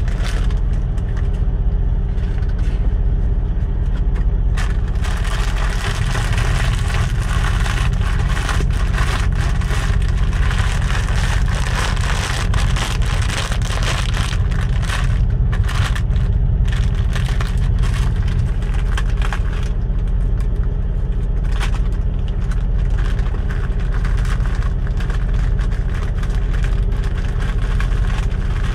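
Steady low rumble of an idling semi truck's diesel engine, with a foil snack bag crinkling and rustling through the middle stretch.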